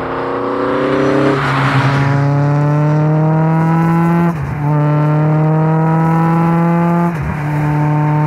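Millington Diamond 2.7-litre four-cylinder twin-cam engine of an MST Mk2 restomod under hard acceleration. The revs climb steadily and break briefly at quick upshifts of its sequential gearbox, three in all, about three seconds apart.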